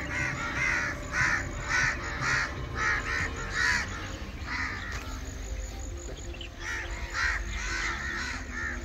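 A flock of crows cawing, harsh calls coming two or three a second, with a short lull about halfway through.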